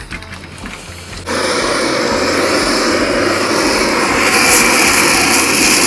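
Handheld butane blowtorch firing a steady rushing hiss onto lamb ribs on a charcoal grill grate; it starts abruptly about a second in and grows louder near the end.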